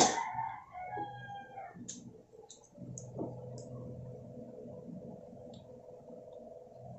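Scattered soft clicks from eating at the table, over a faint steady hum.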